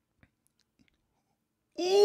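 Near silence with a few faint clicks, then near the end a man breaks into loud laughter, a quick run of pitched 'ha' sounds.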